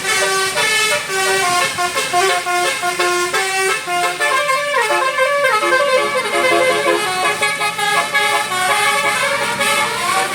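A bus's Basuri telolet horn, a multi-note musical horn, playing a tune in quick changing notes, with a run of falling notes about halfway through.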